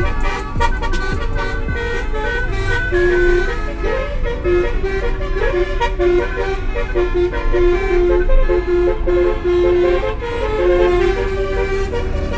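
A tune of held notes stepping up and down in pitch, over a steady low vehicle rumble.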